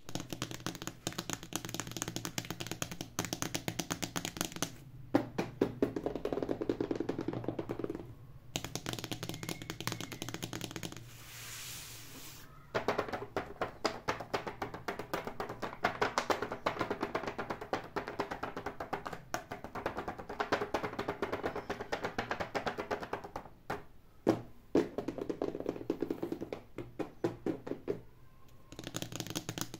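Fast fingernail tapping and scratching on a bag's metal badge and a plastic toy box, over background music, with a short break in the tapping near the middle.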